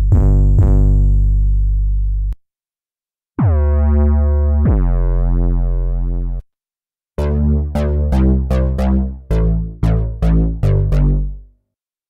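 Cherry Audio Dreamsynth DS-1 software synthesizer playing 808-style bass presets: a sustained deep bass that cuts off, then two deep booming notes that each open with a quick downward pitch drop. After a short gap comes a run of about nine short bass notes at changing pitches, each dying away quickly.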